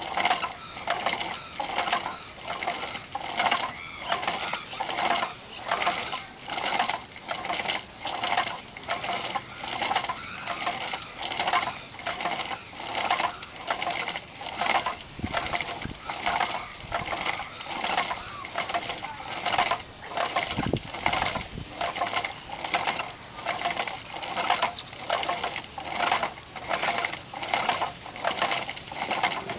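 Hand-held abrasive paper sanding a black-lacquered Burmese lacquerware vessel as it turns on a rope-driven wooden lathe: a dry scratchy rasp that swells and fades about one and a half times a second.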